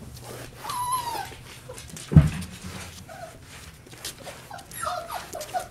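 Yellow Labrador puppies whimpering: short, high whines that rise and fall, with one longer whine about a second in. A single loud thump comes about two seconds in.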